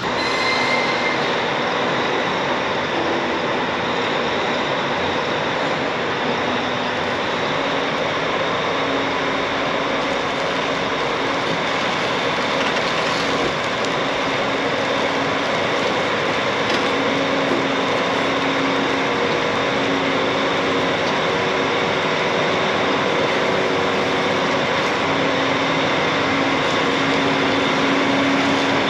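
Tractor engine running steadily, a constant loud mechanical noise with no change in pitch.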